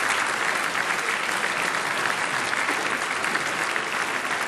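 Studio audience applauding: dense, steady clapping from a large crowd.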